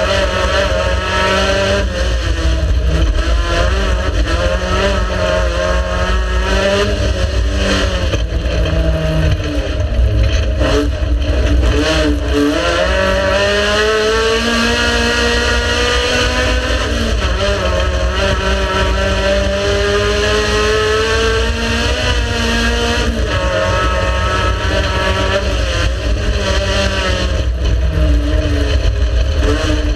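Race car engine running hard, its pitch climbing and falling again and again as it accelerates and lifts off, over a heavy low rumble.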